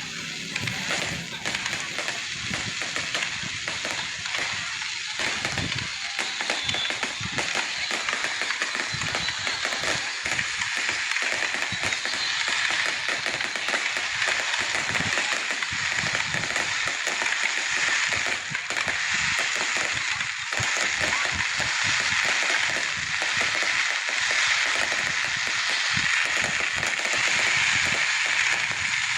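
Fireworks going off: a dense, continuous crackle with many quick pops and bangs, growing a little louder toward the end.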